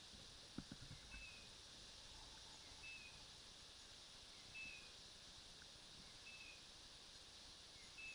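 Near silence: a faint steady hiss with a short high chirp repeating at an even pace, about every second and a half, and a few soft low thumps about half a second in.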